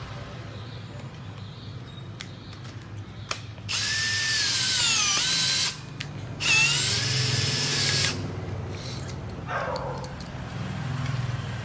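Cordless drill driving the cone of a tube-flaring tool to flare the end of a copper tube, run twice for about two seconds each with a short pause between, the motor pitch sagging as it loads up. Light clicks of the tool being handled come before and after.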